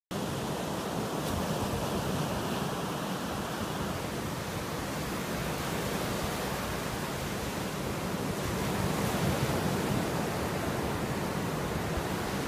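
Irish Sea surf breaking and washing up a sandy beach: a steady rush of waves, a little louder about nine seconds in.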